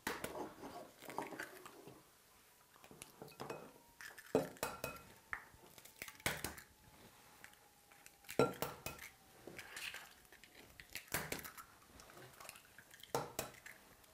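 Eggs being cracked one after another against a mixing bowl: a series of sharp knocks, the strongest about every two seconds, with light clinks of bowl and utensils in between.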